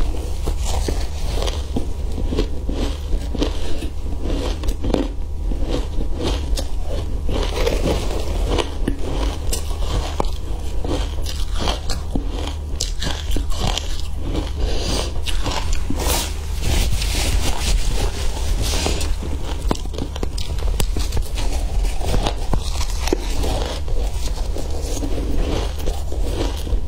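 Crunching and chewing of crushed ice dusted with matcha powder, close to a clip-on microphone: a dense, unbroken run of crisp crackles.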